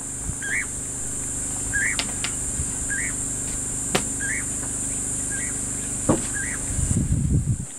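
Bush ambience: insects drone steadily at a high pitch while a bird repeats a short rising call about once a second, over a low steady hum. There are a few sharp clicks, and a low rumbling noise near the end.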